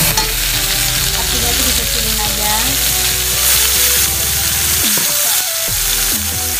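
Wet blended spice paste sizzling and frying in hot oil in an aluminium wok, stirred with a metal ladle. The sizzle is a steady, loud hiss.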